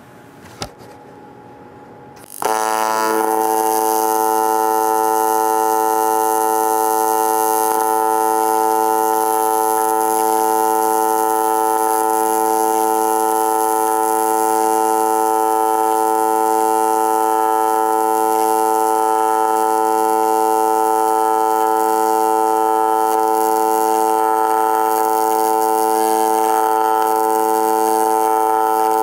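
AC TIG welding arc on aluminum plate, struck about two seconds in and then holding a steady, even buzz while a fillet weld is laid.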